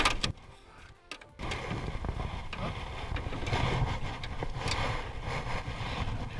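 Handling noise in a small aluminum boat. A clatter at the start, then a brief quiet drop-out, then steady wind and water noise with a few light knocks of gear against the hull.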